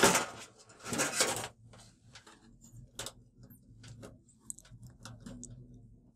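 Handling noise from an LED TV's sheet-metal backlight panel and its cables: two short rustling, scraping bursts in the first second and a half, then scattered light clicks and taps as a cable is fitted to the board, over a faint steady low hum.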